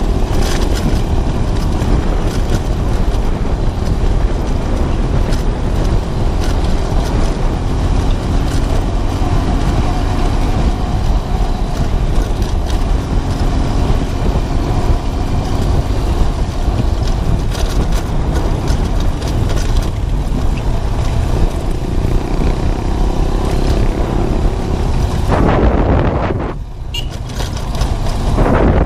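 Motorcycle riding at steady speed: heavy wind rushing over the microphone with the small engine running under it. The wind noise eases for a moment near the end, then picks up again.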